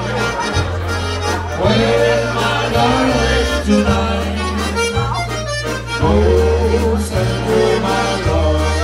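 Live Slovenian-style band playing a waltz: piano accordion carrying the melody over bass guitar and drum kit, the bass moving to a new sustained note about once a second.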